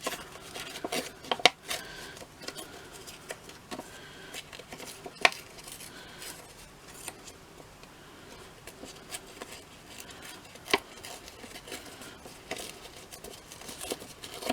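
Paper and card scraps being handled and cut to size with scissors on a craft desk: light rustling and small snips and clicks, with three sharper taps about a second and a half, five and eleven seconds in.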